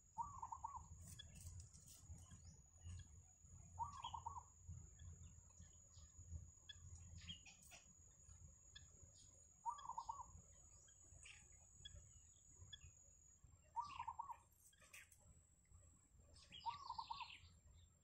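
Faint bird calls: a short wavering call repeated five times, every three to four seconds, over scattered high ticks and a thin steady high-pitched whine.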